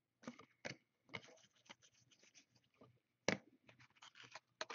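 Trading cards being handled and flipped through by hand: a run of faint, irregular clicks and swishes of card edges sliding and snapping against each other, the sharpest about three seconds in.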